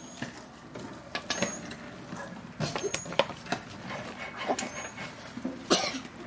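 Scattered metallic clinks and knocks of tools and parts being handled during a wheel hub job, a few ringing briefly, with the loudest knock near the end.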